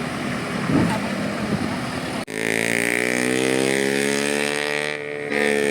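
Road noise, then about two seconds in an abrupt cut to a bus's diesel engine running with a steady, low drone whose pitch rises and falls slightly.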